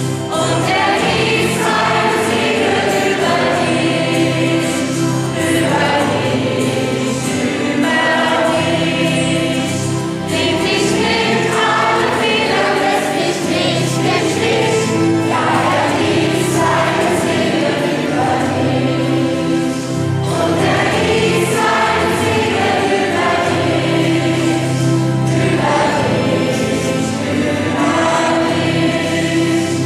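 Choir singing a sacred song with steady keyboard accompaniment, the phrases running on without a break in a reverberant church.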